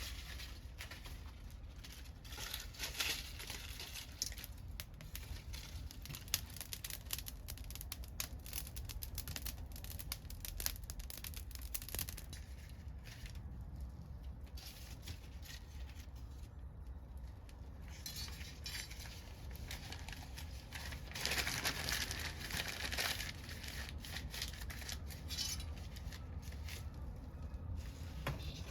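Wood fire crackling steadily with many small snaps and pops, and a louder hissing flare-up about three quarters of the way through.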